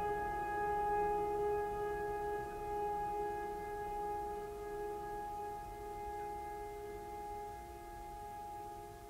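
Background music: a chord of steady held tones that slowly fades.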